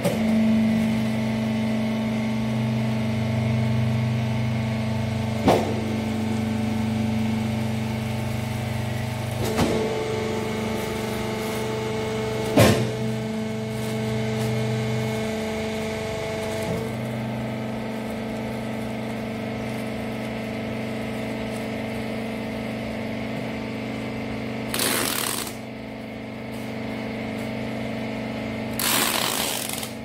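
Textile rag hydraulic baler's motor and pump running with a steady hum, its tone changing as the ram works, with part of the hum dropping out about halfway through as the pressed bale comes out. A few sharp clunks come from the machine in the first half, and near the end there are two short rasping bursts of packing tape being pulled off a dispenser.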